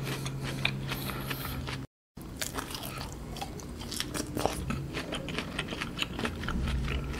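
Close-miked chewing of fresh apricot: soft, wet mouth clicks and smacks, with a brief cut-out about two seconds in.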